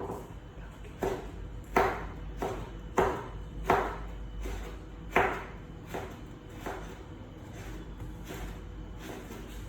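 A series of sharp knocks, about eight, irregularly spaced and briefly ringing, the loudest in the first half.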